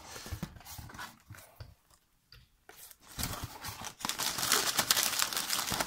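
Crumpled newspaper packing paper rustling and crinkling as a hand digs through it in a cardboard box. It goes quiet for about a second in the middle, then comes back as a longer, louder spell of crinkling.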